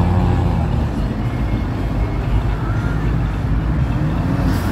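Motorcycle trike engine running as the trike rides past, a low, steady rumble.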